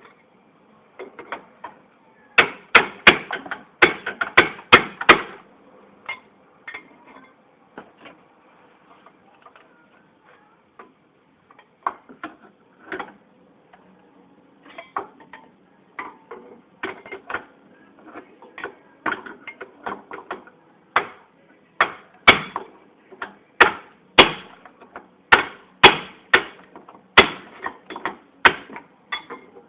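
Repeated hammer blows on the seized rear wheel bearing and hub parts, sharp metal strikes in irregular bursts, with fast runs of hits a few seconds in and again over the last several seconds.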